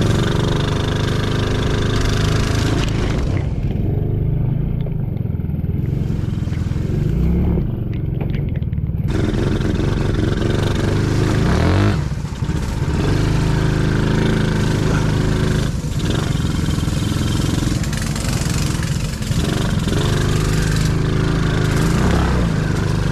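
Small engine of a kids' ATV running and revving under load, its pitch rising and falling as the throttle is worked.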